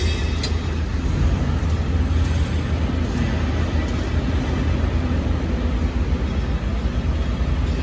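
Steady low mechanical rumble of running machinery, with two short clicks right at the start.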